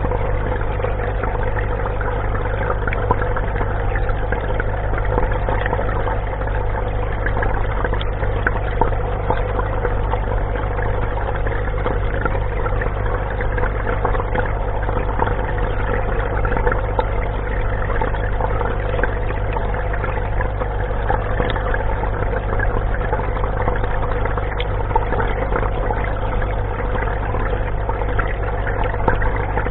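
Steady machine hum with a constant mid-pitched tone over an even hiss like running water, the background of the submerged tray unit.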